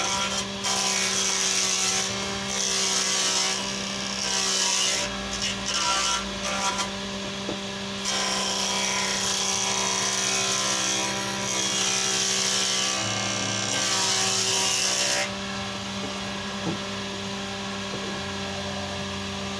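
The 7-inch circular saw blade of a multifunction woodworking machine rips a heavy wooden door-frame beam lengthwise. The motor runs steadily while the cutting noise comes and goes as the board is pushed through in stretches. About fifteen seconds in the cut stops and the motor runs on alone.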